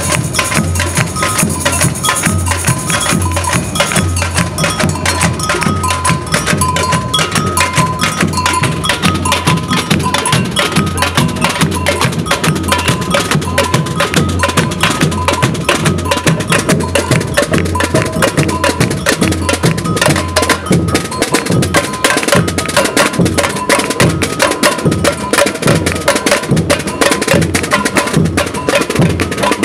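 Samba batucada drum group playing. Surdo bass drums beat a steady pulse under dense snare drum strokes, with a two-note bell pattern ringing on top.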